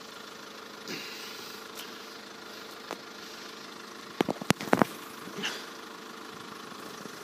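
Steady hum of car engines idling while waiting at the closed barriers. A quick run of sharp clicks comes about four to five seconds in.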